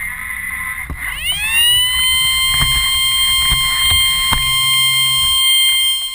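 Robot drive motors whine and rumble as the robot runs up against the target box. About a second in, an alarm siren starts, rising quickly in pitch and then holding one steady high tone, with several knocks over it. The siren signals that the robot has reached the goal.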